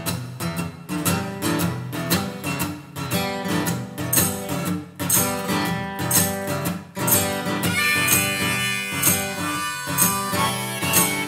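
Acoustic guitar strummed steadily, with a harmonica played over it.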